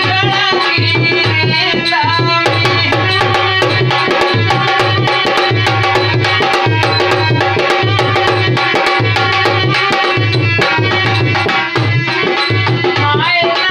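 Instrumental passage of a Rajasthani languriya folk song: a harmonium plays the melody over a steady dholak rhythm. The singing voice comes back in near the end.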